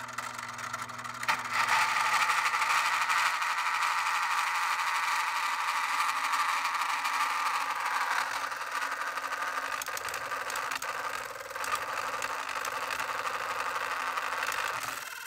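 Motor-driven LEGO table-saw blade whirring as it cuts through paperboard, with a steady rasp of the card against the blade from about a second and a half in. Scattered clicks and rattles in the second half come from the LEGO drive gear, which breaks during this cut.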